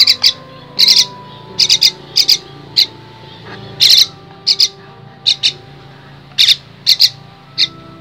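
Young myna chick begging for food with its beak wide open: short, raspy calls repeated every half second or so, often in quick pairs.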